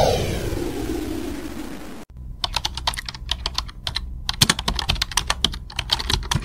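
A falling swoosh sound effect fades out over the first two seconds. It is followed by a rapid run of computer-keyboard typing clicks, a typewriter-style sound effect matching on-screen text typing out.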